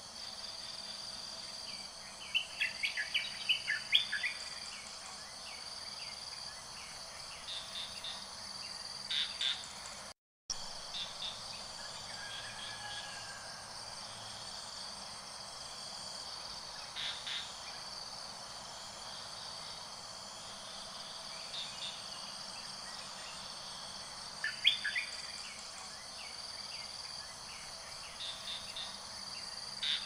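A steady, high-pitched chorus of forest insects, with short bursts of bird calls breaking in several times, the loudest run about two to four seconds in and another near twenty-five seconds. The sound drops out completely for a moment about a third of the way through.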